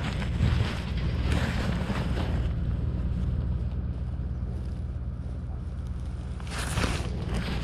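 Wind buffeting the microphone: a steady low rumble, with louder gusts of hiss about a second in and again near the end.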